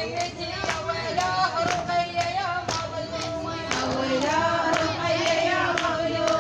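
Voices chanting a mournful latmiya lament with gliding, drawn-out notes, kept in time by sharp hand beats about twice a second.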